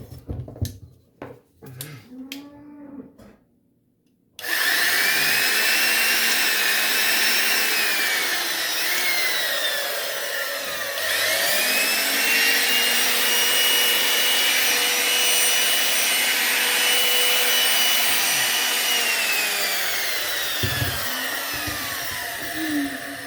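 Old corded electric power tool's motor test-run after a cord and plug repair: a few handling knocks, then about four seconds in the motor starts with a rising whine and runs loudly. It slows, is started again at once, runs steadily, and winds down with a falling whine near the end. The owner feels it lacks power, though he is unsure whether that is just its age.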